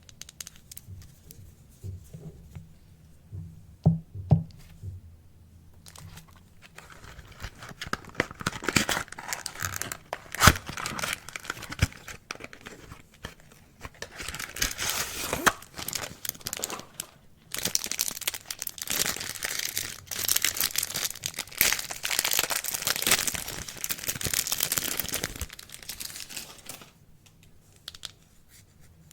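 Soap packaging being torn open and crinkled by hand, in long crackling stretches, after a couple of light knocks near the start.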